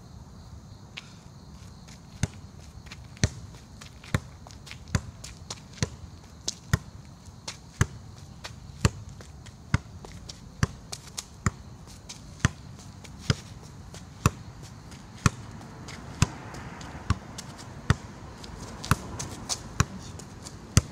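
Football juggled with the outside of the left foot, each touch a sharp thud about once a second, with a few quicker touches in between.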